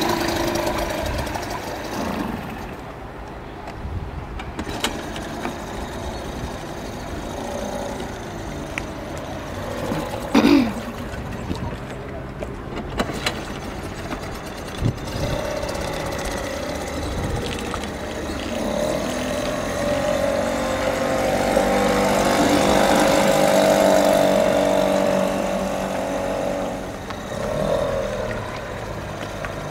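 Tohatsu 3.5 B2 single-cylinder two-stroke outboard motor running at low throttle, growing louder for several seconds past the middle and easing off again near the end. A short loud sound about ten seconds in.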